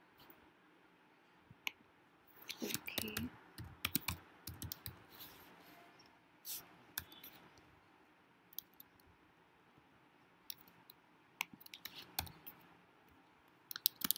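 Typing on a computer keyboard: irregular key clicks, with a busier run of keystrokes from about two to five seconds in.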